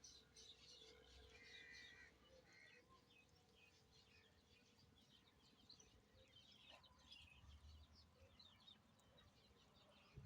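Faint birdsong: many short, high chirps over a low background hum.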